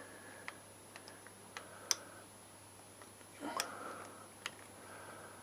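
A spanner clicking and tapping on a brake fitting as the rear brake master cylinder is bled: a handful of sharp separate clicks, with a louder rustling clatter about three and a half seconds in.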